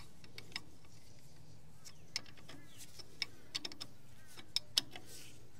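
Scattered light metallic clicks and taps of a spanner working on a diesel tractor's fuel-system bleeder screws and fittings, about ten separate clicks, with faint bird chirps near the end.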